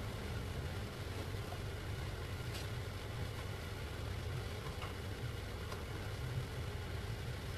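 Kitchen fan running with a steady low hum, with a few faint clicks about two and a half, five and six seconds in.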